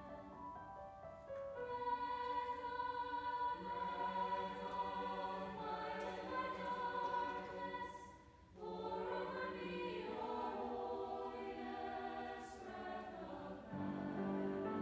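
Choir singing a slow piece in sustained, held notes, with a short breath pause about eight seconds in and lower notes coming in near the end.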